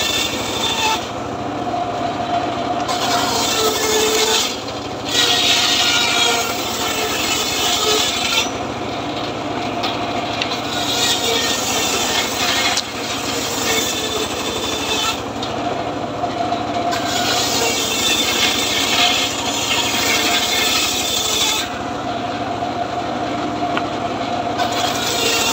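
Homemade circular saw bench ripping very hard, dry acacia boards. The blade's rasping cut comes in stretches of several seconds, broken by quieter gaps of about two seconds between passes, over a steady low hum from the saw's drive.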